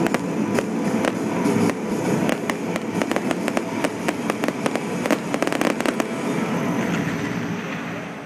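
Fireworks display: rapid sharp bangs and dense crackling from aerial shells and comet fans, thickest in the middle and dying away near the end.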